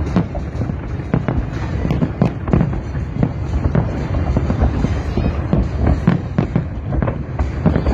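Fireworks display: a dense, continuous barrage of bangs and crackles, several a second with no pause.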